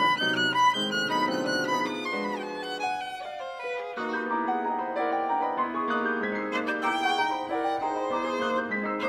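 Classical duo of violin and grand piano playing, the violin carrying the melody over piano accompaniment, with vibrato on held notes in the second half.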